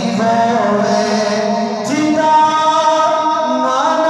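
A man singing a devotional song into a microphone over a loudspeaker system. He holds long notes and slides between pitches, and a new phrase begins about two seconds in.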